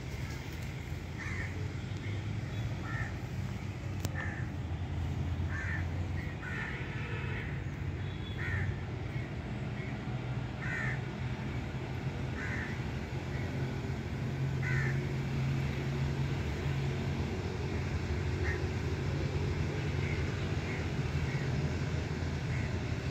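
Short bird calls repeating every second or two over a steady low rumble.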